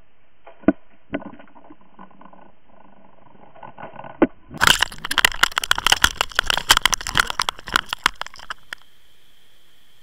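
Water Wolf underwater camera picking up a sharp knock and a few rattles as a pike hits the swimbait just ahead of it. About four and a half seconds in, loud crackling splashes of churning water over the camera start suddenly, then cut off abruptly near the end, leaving a steady underwater hiss.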